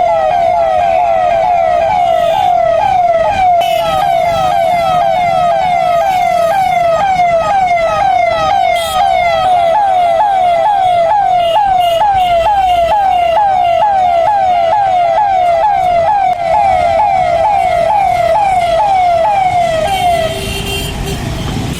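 Siren sounding a fast, repeating falling wail, about two sweeps a second, that stops about twenty seconds in: the siren that signals the city to halt, stand still and mask up in the anti-COVID campaign.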